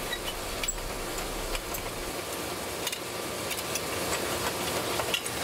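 Steady rushing noise of a working forge, with scattered faint small clicks and ticks of metal as hot steel is worked in a bending jig; no hammer blows.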